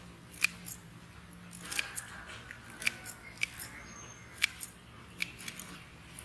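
Harvest shears or scissors snipping vegetable stems: a string of sharp, irregular clicks, roughly one a second.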